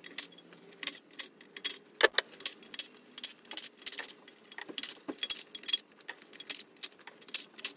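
Impact wrench run in quick bursts, backing out the engine-mount bolts on a Mazda 13B rotary engine, with a dense, irregular run of sharp metallic clicks and rattles.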